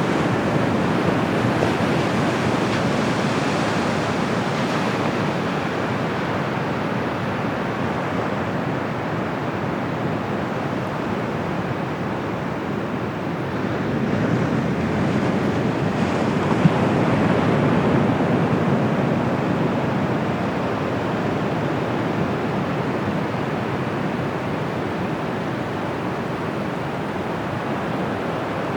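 Surf of the Bay of Bengal washing onto the beach in a continuous wash of waves, swelling louder about halfway through as a bigger wave breaks.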